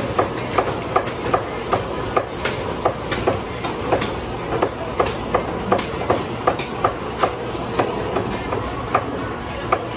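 Electric meat grinder running while pork is fed in: a steady motor hum with a regular clicking knock about two to three times a second.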